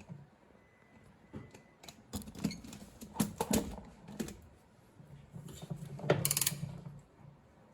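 Scattered metallic clicks and knocks of tools and parts being handled while a new damper is fitted into a drum washing machine, with a longer rattling, clicking stretch about five to seven seconds in.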